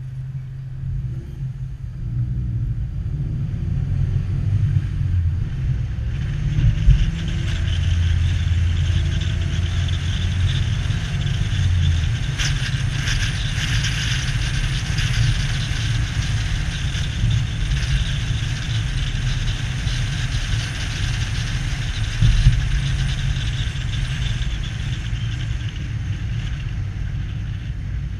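Car driving along a city street: a low engine rumble with tyre and road noise that builds as the car picks up speed, and two brief thumps.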